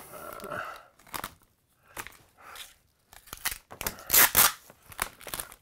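Utility knife cutting polyethylene vapor barrier and red sheathing tape, with the plastic crinkling and tape ripping off its roll. The loudest is a cluster of short scrapes between about three and four and a half seconds in.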